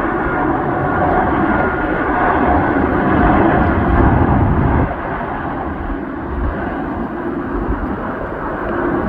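Boeing 787-8 jet engines at takeoff thrust: a steady, loud roar with a faint whine running through it. The deep rumble eases about five seconds in.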